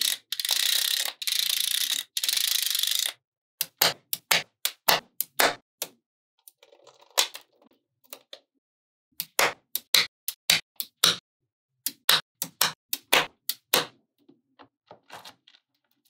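Small magnetic balls rattling in a dense scrape for about three seconds as a plastic scraper slides along a row of them, then clusters of sharp clicks as balls snap against each other, with fainter ticks near the end.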